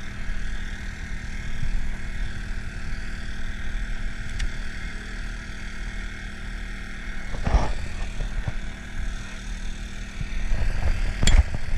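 Small engine running steadily on the bowfishing boat, a constant hum with a low rumble. There is a dull knock about halfway through and a sharp click near the end.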